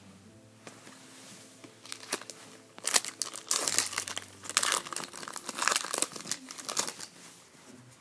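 Trading-card pack wrapper being torn open and crinkled by hand: a quiet start, then dense crackling and snapping from about three seconds in, dying down near the end.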